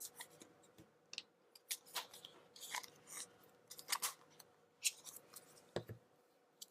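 Small scattered clicks, crackles and rustles of Play-Doh and its plastic tub and mould being handled, as blue dough is taken out to fill the mould.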